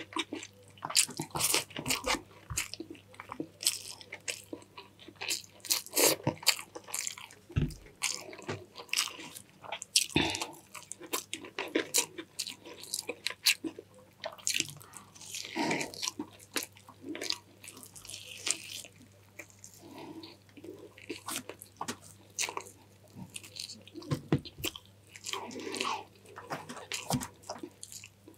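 A person eating close to the microphone: chicken in coconut-milk sauce with rice. Chewing and biting with irregular small crunches and clicks.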